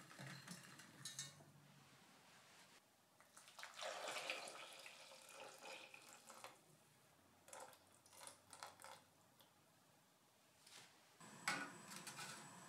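Sugar tipped from a glass bowl onto figs in a stainless steel saucepan, with light ticks at the start; then steeped tea poured from a small metal pot into the pan splashes for about two seconds. Near the end a perforated stainless steel drop lid is set into the pan with a sharp metal clink that rings on.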